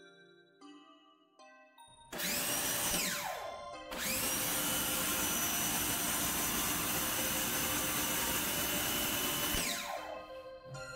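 CAT 1800 PSI electric pressure washer spraying through a 40° nozzle with a pressure gauge in line. The motor and pump start with a rising whine about two seconds in, cut out after about a second, then start again and run steadily with a hiss of spraying water for about six seconds before winding down near the end. Light jingly background music plays underneath and on its own at the start.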